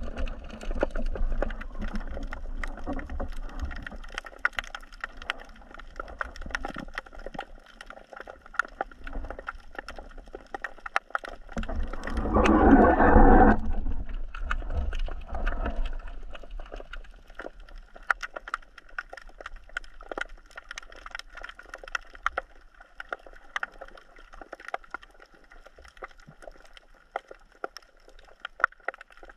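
Underwater ambience picked up by a submerged camera: a dense crackle of sharp clicks over a low rumble of moving water. Midway through there is a louder rushing burst lasting about a second.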